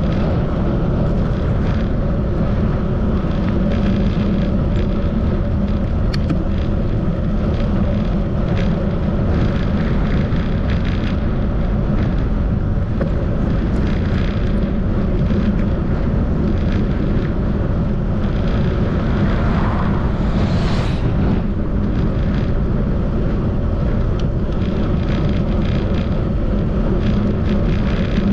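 Steady low rumble of wind on the microphone and tyre noise from a bicycle on the move, with a brief rising swish about twenty seconds in.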